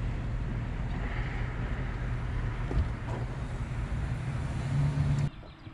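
Bass boat's outboard motor idling with a steady low hum, its pitch rising briefly near the end before the sound cuts off suddenly about five seconds in.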